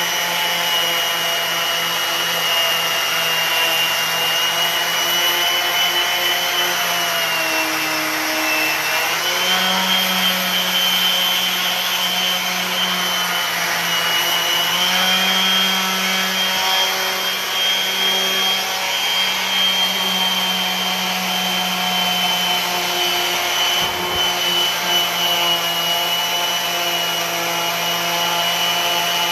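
A power tool's electric motor running steadily during rough sanding of wood with 80-grit paper. Its pitch sags for a moment about eight seconds in and wavers again halfway through.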